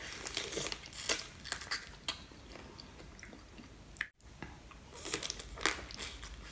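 Biting and chewing spicy marinated raw crab, with irregular crunches and cracks of crab shell. They come in clusters in the first two seconds and again around five to six seconds, with a short cut-out about four seconds in.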